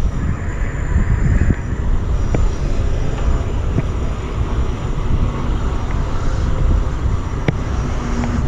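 Steady low outdoor rumble that rises and falls, with a few faint clicks scattered through it.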